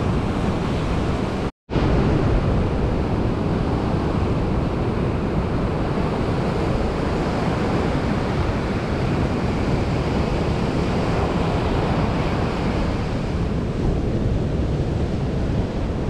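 Ocean surf breaking and washing up a sandy beach, a steady rush of waves, with wind on the microphone. The sound cuts out for a moment about one and a half seconds in, then carries on.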